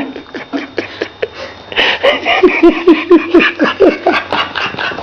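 Several people laughing, with giggles and snickers. The laughter gets louder a couple of seconds in and becomes a quick run of short laughs.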